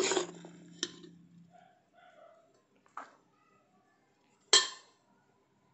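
A metal serving spoon knocks against a stainless steel plate and pot while cooked rice is being served. There is a loud clank at the start, a lighter tap just under a second in, another about three seconds in, and the loudest clank about four and a half seconds in, which leaves a faint ringing.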